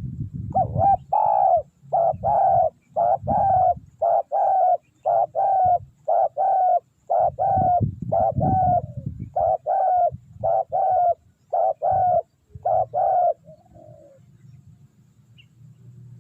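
Spotted dove calling: a long, even run of short coos, about two a second, that stops about three seconds before the end.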